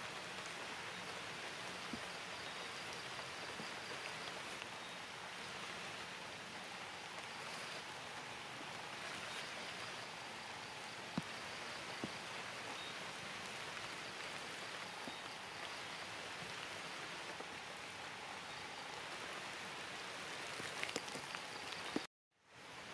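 Steady rain falling on leaves, with a few sharper drips now and then; the sound cuts out for a moment near the end.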